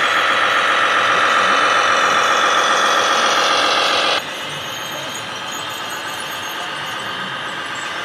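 Radio-controlled MAN tipper truck model driving, with a loud, steady high whine from its drive. The whine cuts off abruptly about halfway through, leaving quieter background noise.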